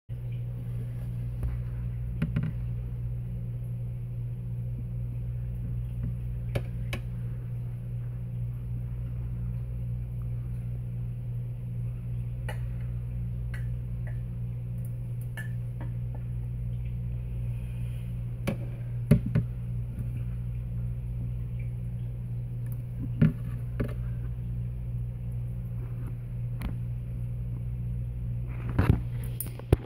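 Steady low electrical or motor hum, with a few short faint clicks and knocks scattered through it, the sharpest in the second half.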